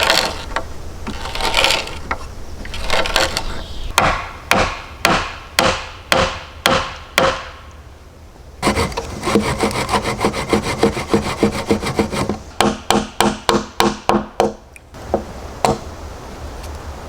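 Hand tools working wood: scraping strokes, then a run of sharp knocks about two a second. After a short pause come fast, even rasping strokes, and a last quick run of ringing strikes that stops suddenly.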